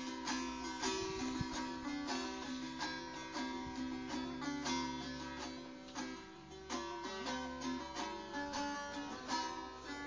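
Bağlama (long-necked Turkish saz) played with rapid, busy picking strokes in a folk melody, with no singing.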